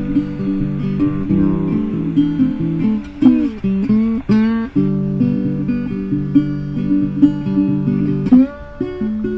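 Background music on acoustic guitar, plucked and strummed, with a few sliding, bent notes about three to four seconds in and again near the end.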